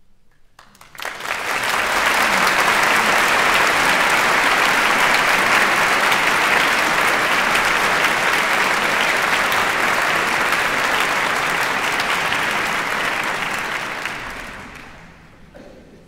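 Large audience applauding: a few scattered claps about a second in swell quickly into full, steady applause, which fades away near the end.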